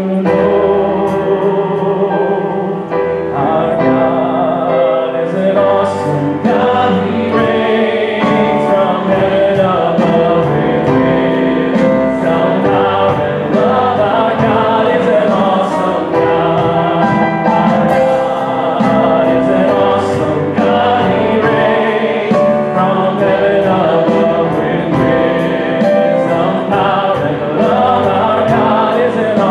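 Live gospel worship song: a man singing, with voices joining as a group, over keyboard accompaniment and a steady beat.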